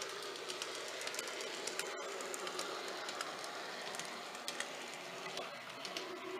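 An N gauge model train running along the track: a steady running noise with many light, irregular clicks from the wheels on the rails. There is a brief dropout about two seconds in.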